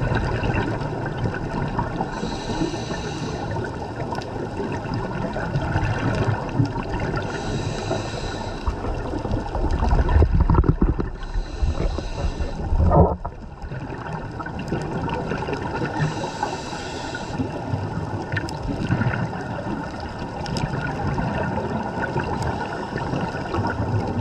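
Scuba diver breathing through a regulator underwater: a hissing inhalation every few seconds, with bubbling exhalations in between, over steady water noise. A couple of louder bubbling bursts come about halfway through.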